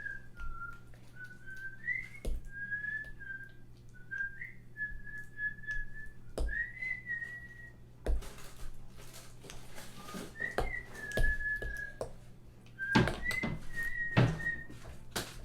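A person whistling a meandering tune in short notes, with a few scattered knocks and clicks of kitchen utensils.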